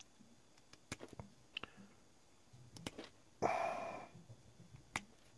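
Small sharp clicks and snips of hand cutters working the insulation off the end of a thin wire, scattered irregularly. About three and a half seconds in there is a short noisy burst, the loudest sound.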